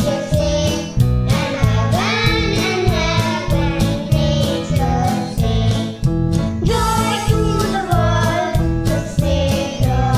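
Children singing a Christmas song together over a backing track with a steady beat.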